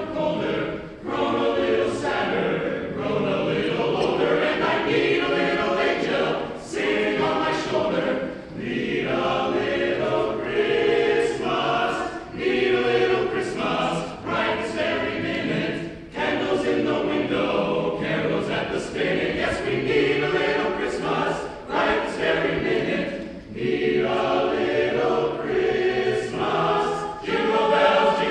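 Men's choir singing a Christmas song together, steady and full throughout.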